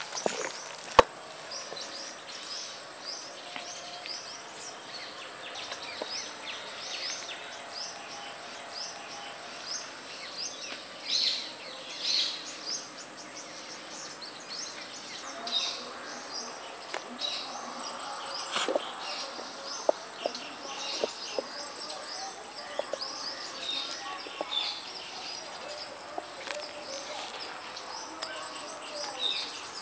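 Many birds chirping and calling, with an insect's steady high-pitched whine that breaks into short trills now and then. A single sharp knock sounds about a second in.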